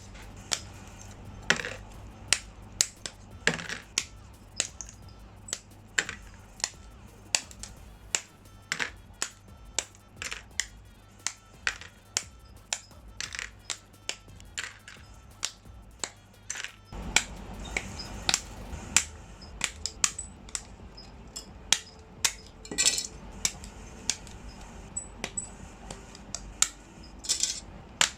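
Sharp plastic clicks and snaps, roughly one or two a second, from a Gunpla plastic model kit being worked on by hand: parts cut from the runners and pressed together.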